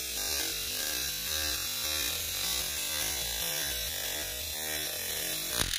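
Toy RC mini helicopter's small electric rotor motors buzzing steadily with a high hiss of spinning blades, as it flies while towing a toy car. A sharp knock comes near the end.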